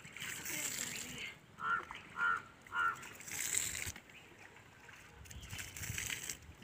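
Three short honks in quick succession, about half a second apart, between stretches of hissing noise.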